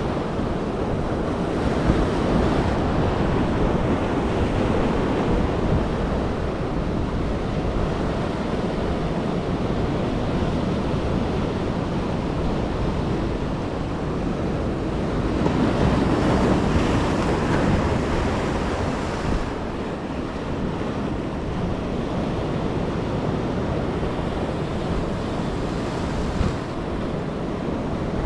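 Ocean surf breaking on the beach, with wind buffeting the microphone. The wash rises and falls, with a louder surge of breaking water about halfway through.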